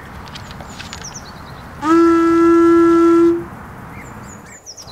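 A curved animal horn is blown: one long, steady note lasting about a second and a half, its pitch scooping up briefly as it starts.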